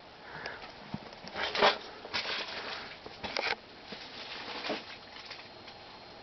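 Vintage Fasco Charleston ceiling fan running quietly on its low speed, with about five short irregular swishing noises spread across a few seconds over its faint steady sound.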